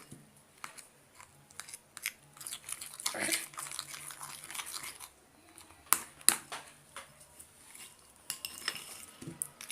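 Slime being stirred and squished in a container: sticky crackling and rustling with scattered sharp clicks and taps, the loudest two close together about six seconds in.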